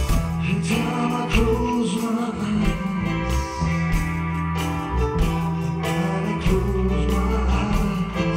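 Live band playing a soul-rock number: drum kit, bass guitar, keyboards and electric guitar, with a trumpet playing over them.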